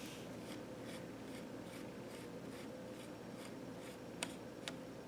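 Faint, light scraping strokes from hands and a small tool working inside an opened laptop, about two to three a second, with two small sharp clicks near the end.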